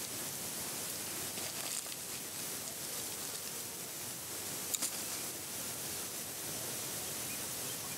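Steady hiss of outdoor background noise without speech, with a single brief click a little past halfway.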